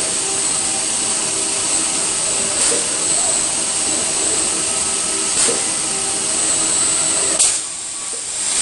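Robotic car-body assembly line running: a steady loud hiss over a low machine hum, broken by a sharp click every two to three seconds. Right after the last click near the end, the hiss drops away for about a second.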